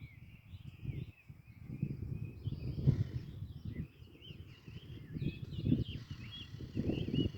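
Wild birds calling and chirping, many short high chirps and trills overlapping. Louder bursts of low rumbling noise on the microphone come and go, the strongest about three seconds in and near the end.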